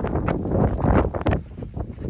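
Wind buffeting the microphone in gusts, a rough rumbling noise that swells and dips.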